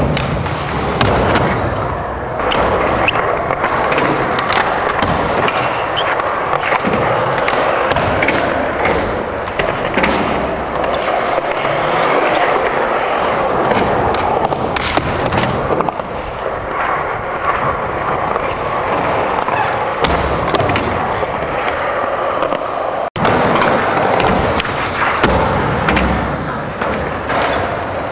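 Skateboard wheels rolling over concrete and ramps in a steady rumble, broken by frequent sharp clacks and knocks of tail pops and landings. The sound cuts out briefly about 23 seconds in.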